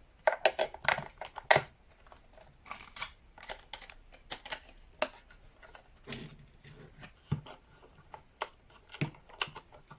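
Plastic clicks and knocks from a handheld digital multimeter as 1.5-volt batteries are worked into its battery compartment. The sharp clicks come thickest in the first two seconds, then scattered.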